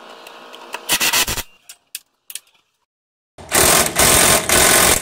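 Cordless impact wrench hammering on a bolt of a VW Transporter T4's front shock absorber mounting: a short burst about a second in, then a longer, loud run from about three and a half seconds in, with brief pauses.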